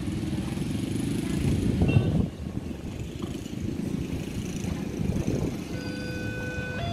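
A motor vehicle's engine rumbling close by, loudest about two seconds in and then dropping away sharply.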